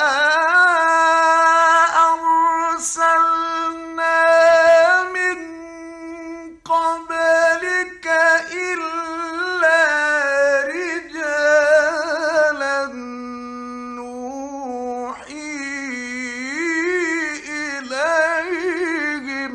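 Male Quran reciter chanting in a slow, melodic tajweed style, with long held notes that waver and bend in ornaments, in a high voice. The phrase is nearly continuous, with a brief break for breath about six and a half seconds in, and it settles on a lower note for a while past the middle before climbing again.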